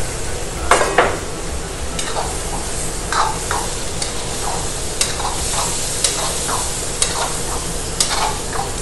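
Chicken karahi frying and sizzling in a steel karahi wok over a high gas flame while a metal ladle stirs in freshly added masala, scraping the pan about once a second.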